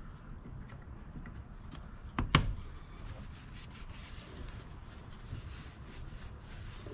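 Quiet handling noises with one sharp double click about two seconds in.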